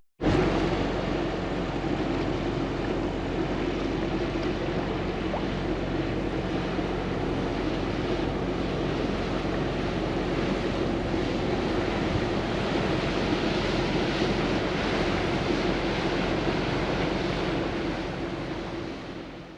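Gulfstar 40 sailboat's auxiliary engine running steadily under the rush of water and wind, fading out near the end.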